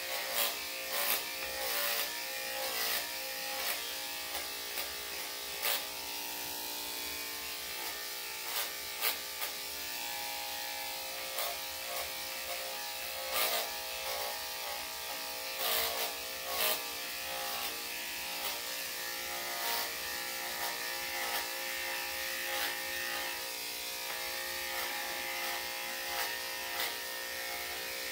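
Electric dog-grooming clippers fitted with a #7 skip-tooth blade, running steadily while cutting through damp fur, with scattered short clicks.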